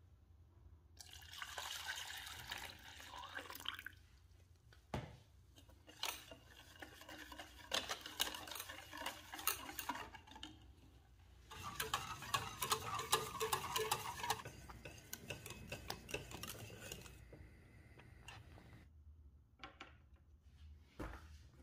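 Kitchen preparation sounds: a utensil stirring and scraping in a bowl in several bouts, with sharp clinks of metal against the dish.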